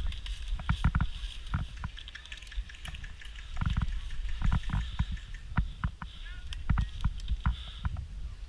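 Rustling with many irregular knocks and thumps, no steady rhythm, typical of a player moving through brush with gear.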